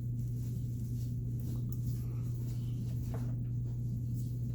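Faint clicks and rustles of small Anderson Powerpole connector parts being handled and fitted together, over a steady low hum.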